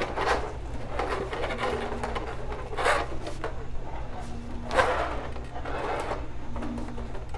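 Rigid 3D-printed plastic armor pieces knocking and rubbing against each other as the wearer moves, with several sharp clacks, the loudest a little before five seconds in, over a steady low hum.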